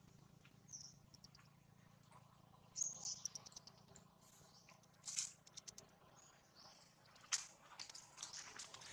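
Infant macaque giving a few faint, short, high-pitched squeaks, scattered through the stretch, with light clicks and rustles.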